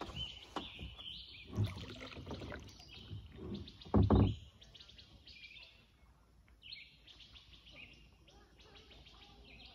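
Songbirds chirping and singing in the trees along a river, with a few low bumps and rumbles, the loudest about four seconds in.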